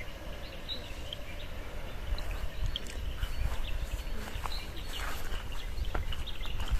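Outdoor ambience: short, scattered bird chirps over a steady low rumble.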